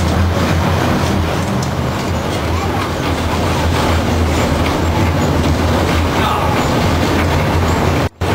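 Streetcar running along its rails, heard from inside the car: a steady low rumble and rattle. The sound cuts out for an instant near the end.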